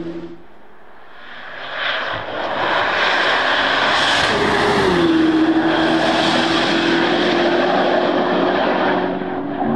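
Camouflaged Corvette C8 ZR1 prototype, said to carry the LT7 5.5-liter turbo V8, approaching at speed and passing by. Its engine note drops in pitch about five seconds in.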